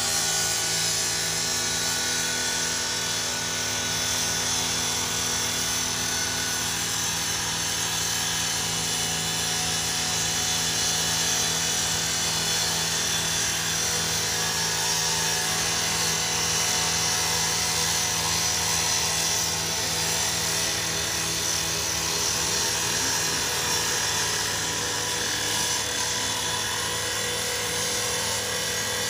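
Firefighter's gas-powered rotary saw running steadily at full speed, its blade cutting into the metal body of a garbage truck with a constant high grinding hiss over the engine's hum.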